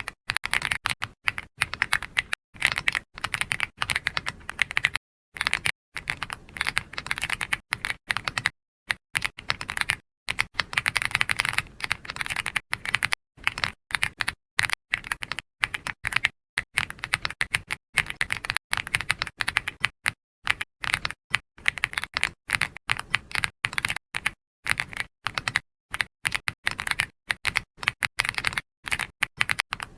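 Computer keyboard typing: quick, irregular runs of keystroke clicks, broken by short pauses.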